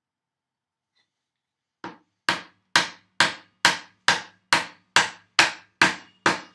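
Mallet striking the handle of a chisel, chopping a mortise in wood. Starting about two seconds in, one light tap is followed by ten sharp, even blows, about two a second.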